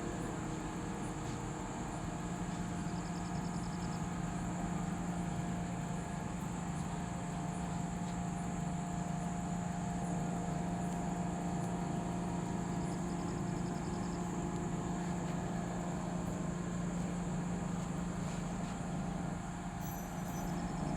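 Engine of a large XCMG truck-mounted crane running steadily under load, a continuous low hum that grows a little stronger about two seconds in.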